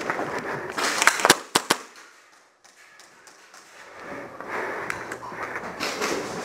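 Airsoft pistol firing a quick string of about five sharp shots over less than a second.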